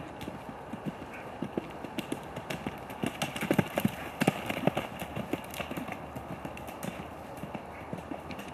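Hoofbeats of a Welsh Section D gelding cantering on grass and jumping a log fence, a run of thuds that are loudest and closest together near the middle, where he clears the log.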